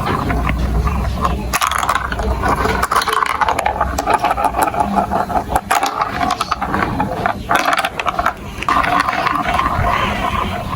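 Marbles rolling and clattering along a plastic building-block marble run: a continuous rattle of many quick clicks as they run down the tracks and knock against the pieces.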